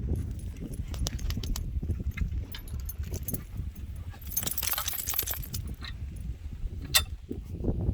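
Dog walking on a leash: footsteps and small clicks over a low steady rumble, with a burst of metal jingling from the dog's leash and collar hardware about halfway through.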